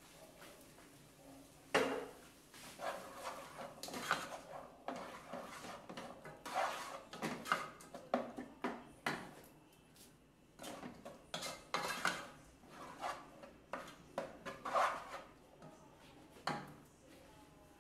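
Wooden spoon stirring a vegetable mixture in a nonstick pot: irregular scraping, with knocks of the spoon against the pot. It starts about two seconds in with the sharpest knock and stops about a second before the end.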